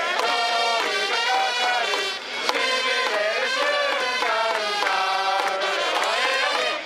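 Large crowd of baseball fans singing a team cheer song together, one continuous melodic chant with a short dip a little after two seconds.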